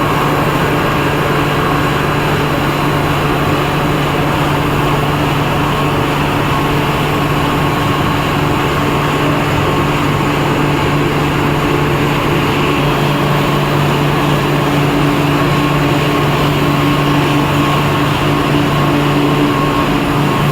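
Snack food extrusion line running: a steady, loud machine drone with a constant hum.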